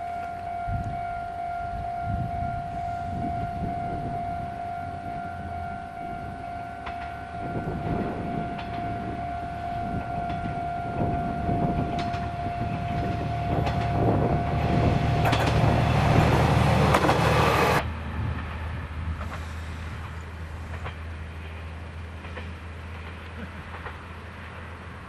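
Kanto Railway Joso Line diesel railcar passing, its wheels clicking over the rail joints and its diesel engine humming. The noise builds to a loud rush that cuts off suddenly about 18 seconds in, after which the engine hum fades away. A steady high tone runs under the first 15 seconds.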